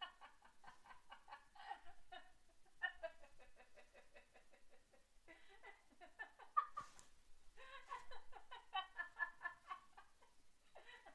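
Women laughing in several faint bouts of quick, high-pitched giggling pulses, with short breaks between the bouts.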